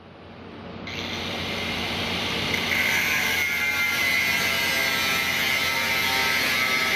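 Hand-held angle grinder cutting a V-groove into stainless steel sheet so the sheet can be bent. It fades in over the first couple of seconds, then runs as a steady high whine with grinding hiss.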